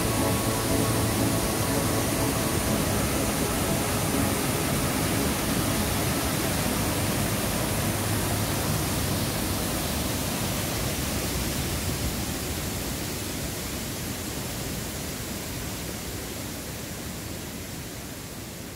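White water rushing over a rocky river cascade, a steady rush of falling water that fades out over the last few seconds.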